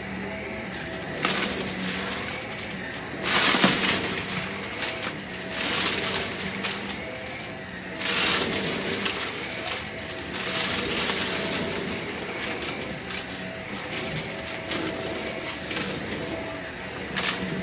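Shark upright vacuum cleaner running with a steady motor hum while it sucks up a heap of small dry debris, the pieces rattling and clattering up through the nozzle in repeated surges of a second or two, loudest about three and a half and eight seconds in.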